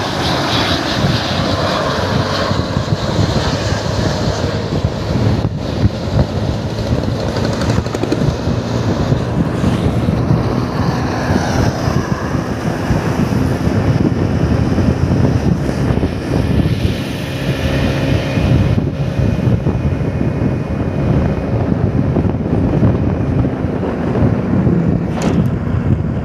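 Steady driving noise of vehicles on the move: engine and road noise from close behind and alongside large coaches on the highway.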